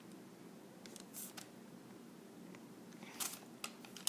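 Faint handling noises: a few short, light rustles and scratches of fingers working a small clay piece on a sheet of paper, the loudest about three seconds in, over a low steady room hum.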